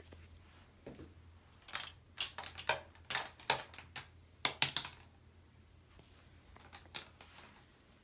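Irregular run of sharp clicks and clatters of a small ice cube being knocked about on a hard stone countertop and sink, busiest from about two to five seconds in, with a few more taps near the end.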